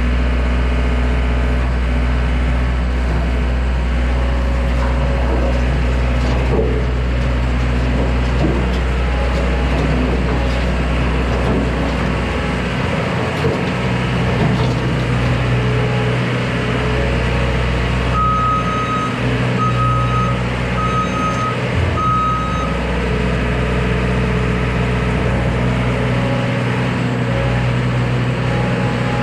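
Small skid steer's engine running steadily under work, with its reversing alarm beeping four times about two-thirds of the way through.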